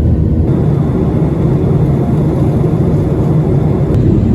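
Steady, loud low rumble of aircraft engines with no break or change.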